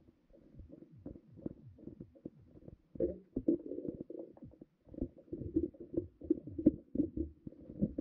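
Muffled, irregular low knocks and rumbling heard underwater beneath the ice. The sound is faint at first and grows louder about three seconds in.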